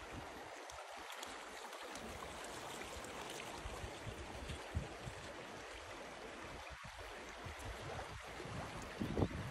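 A shallow mountain brook running over a stony bed, with a steady, even babble of water.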